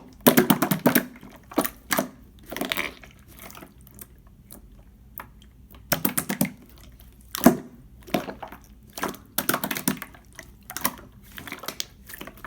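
Clear slime being squeezed and poked by hand, giving irregular bursts of small wet clicks and pops.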